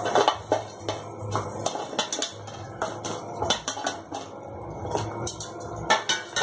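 Metal kitchenware clinking and knocking: a steel plate and utensils tapping against a metal kadai as fried besan gatte are added to the gravy, in light, irregular clicks throughout.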